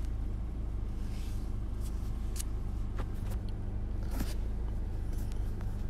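Steady low mechanical hum with a few faint clicks and brief rustles about two to four seconds in.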